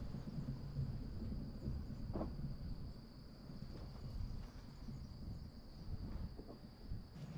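Outdoor ambience: a steady, unbroken high-pitched whine over a low rumble, with a few faint clicks.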